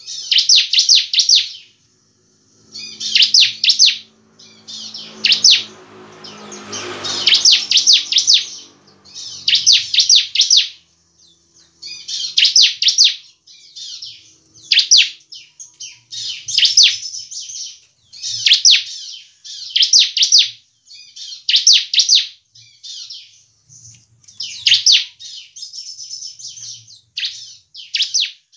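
Caged bar-winged prinia (ciblek) singing persistently: bursts of rapid, high-pitched trilled notes, each burst about a second long, repeated roughly every two seconds.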